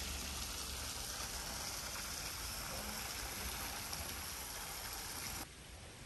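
Small cascade spilling into a stone-edged pond: a steady rush of falling water. It drops suddenly to a quieter hiss near the end.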